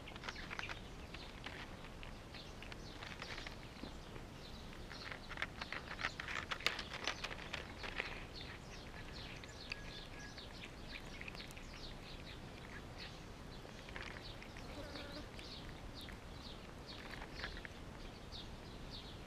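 Cats eating wet food from a plastic tray close by, with wet chewing clicks and smacks that crowd together in a busier stretch about five to eight seconds in. Birds chirp in the background throughout.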